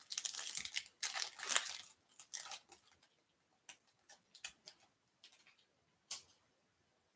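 Crinkly wrapper of a Topps baseball card pack crackling and tearing as it is ripped open, for about two seconds with a shorter burst just after. Then a few sharp little clicks and taps as the cards are slid out and handled.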